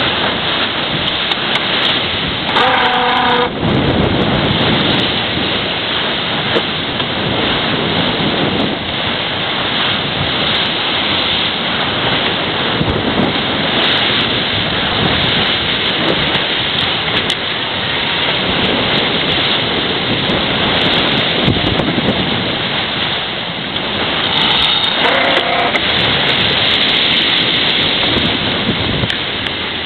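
Wind buffeting the microphone and water rushing past the hull of a Farr 55 racing yacht sailing fast downwind through rough seas. It is a loud, steady rush that surges and eases, with a brief pitched sound about three seconds in and another near the end.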